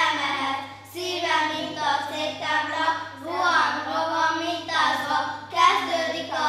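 Young children's voices singing together into stage microphones, in phrases broken by short breaths about every second or two. A steady low hum runs underneath.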